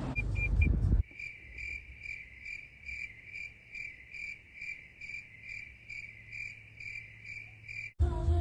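Cricket chirping in a steady, even rhythm of about two high chirps a second. It starts abruptly about a second in and cuts off suddenly near the end.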